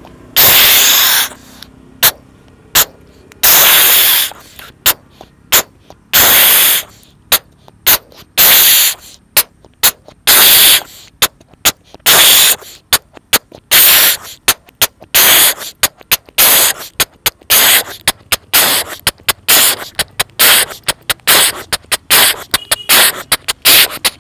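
A man imitating a steam train pulling away, with breathy chuffs and hisses blown through hands cupped over his mouth. It starts with a few long hisses and clicks, then the chuffs come faster and faster into a rapid rhythm.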